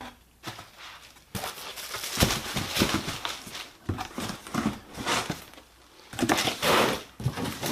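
Parts packaging being handled and unwrapped: irregular rustling, crinkling and knocks, starting about a second in.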